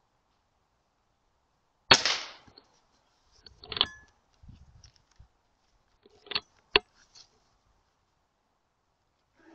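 A sub-12 ft·lb pre-charged air rifle fires once about two seconds in, a sharp crack with a short ringing tail. A quieter sharp sound follows near four seconds, then two short clicks about half a second apart around seven seconds.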